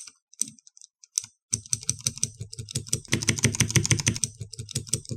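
Clicky Cherry MX Blue key switches on a switch tester being pressed: a few single clicks, then fast repeated clicking from about a second and a half in. The keycaps are fitted with rubber O-rings, which soften the clack of the key hitting bottom but leave the switch's own click.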